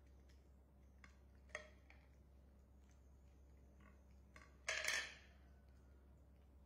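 Quiet room with a few light clicks and taps, then about five seconds in a short, louder clatter with a slight ring, like a ceramic plate or corn cob knocking on a plate on the tiled floor.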